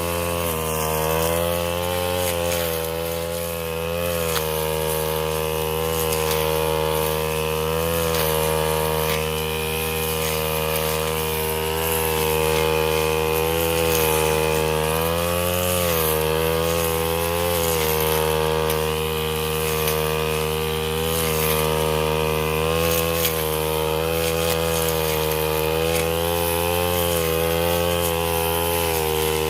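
Brush cutter engine running at high speed, its note steady but dipping briefly and recovering every few seconds, as under the load of cutting grass.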